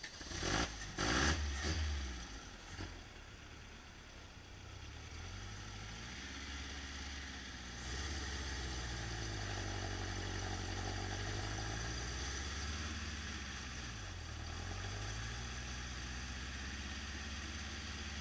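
Toyota 4x4 pickup's engine running at low revs, its pitch rising and falling several times as the truck crawls over a large rock. A burst of loud clatter in the first two seconds.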